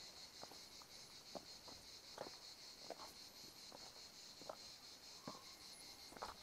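Faint, steady, high-pitched insect trilling, a fast even pulsing buzz, with soft footsteps on a dirt trail about every half second to second.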